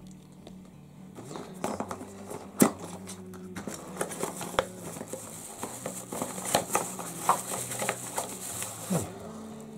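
Metal detector headphones being unpacked and handled: irregular rustling and clicking of plastic, with the sharpest click about two and a half seconds in.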